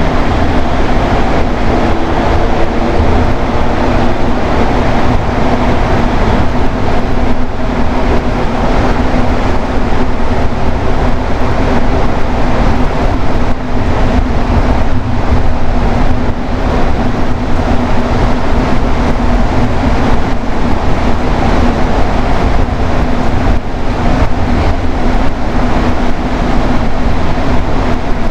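Rubber-tyred Montreal metro train running between stations: a loud, steady rolling rumble with a constant hum.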